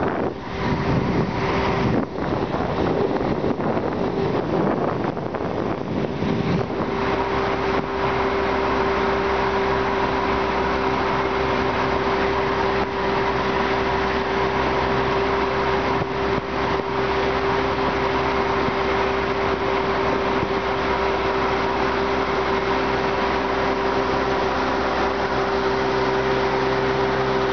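Pontoon boat's outboard motor running steadily at cruising speed, a constant hum. Wind buffets the microphone during the first six or seven seconds.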